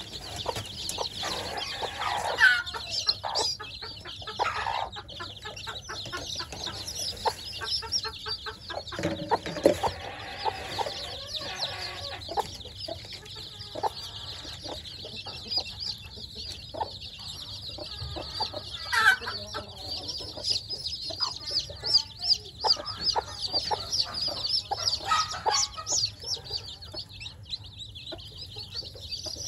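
A brood of week-old chicks peeping continuously, many short high-pitched peeps overlapping in a dense chorus.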